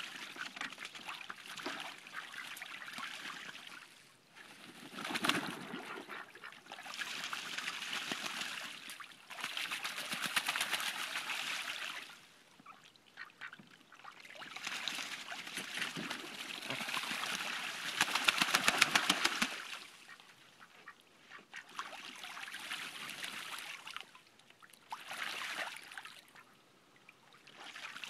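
Pekin and Cayuga ducks splashing and bathing in a small plastic pool, the water churning in bouts of a few seconds with short lulls between, with some quacking. The splashing is loudest and most vigorous about two-thirds of the way through.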